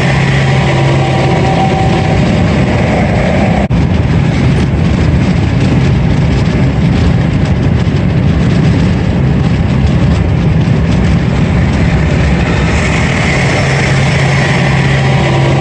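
Steady, loud vehicle noise: an engine running at an even pitch under the rush of road noise, as heard riding along at a constant speed.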